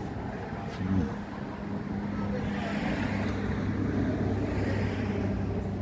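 A running vehicle engine with a steady low hum, with a short sharp sound about a second in.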